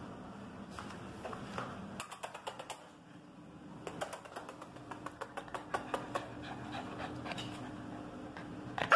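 Two pit bull puppies playing and wrestling on a tile floor: their claws click and skitter in quick runs, with panting, and one puppy gives a short, loud yip just before the end.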